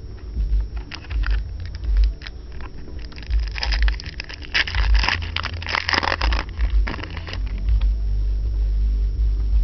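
Trading cards and foil packs being handled: clicks and scraping, then a stretch of dense crinkling in the middle, over a steady low rumble.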